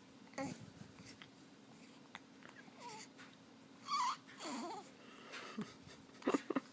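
Baby with hiccups: short, sharp hiccups and little squeaky vocal sounds, the clearest a brief falling squeal about four seconds in, and two sharp hiccups in quick succession near the end, the loudest sounds here.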